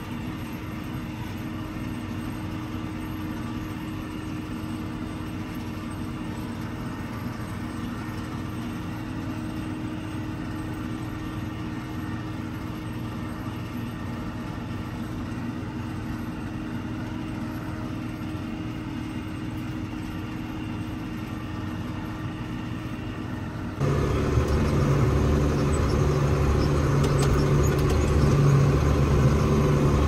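Tractor engine running steadily under load, pulling a disc mower-conditioner through standing hay. Near the end it cuts abruptly to a louder, deeper engine sound from inside a tractor cab.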